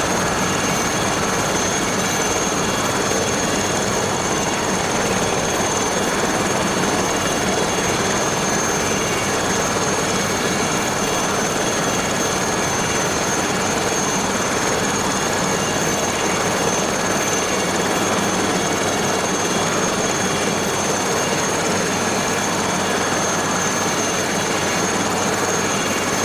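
Aérospatiale SA 315B Lama helicopter's Turbomeca Artouste turboshaft and rotor running steadily, a continuous dense noise with a steady high-pitched whine over it.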